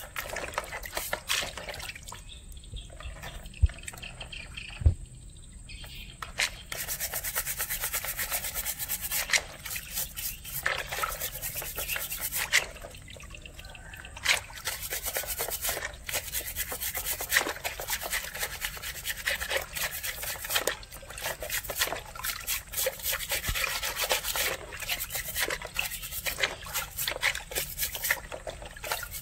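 Stiff plastic scrub brush scrubbing crab shells in a basin of water: fast rasping strokes, with water splashing and trickling as the crabs are dipped and lifted. Two sharp knocks stand out about three and a half and five seconds in.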